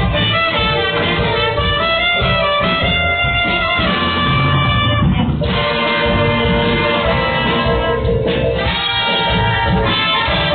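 Live band music with prominent brass-like melody notes over a steady bass.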